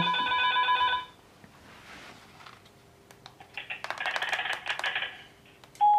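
FERMAX DUOX video intercom monitor's call tone, a steady multi-tone ring that stops about a second in. Later come clicks and rustling as the monitor is handled and its buttons pressed, and a single electronic beep tone starts near the end.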